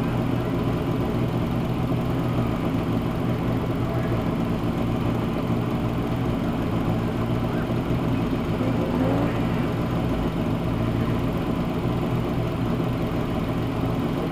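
Mini stock race car engine idling steadily at a standstill.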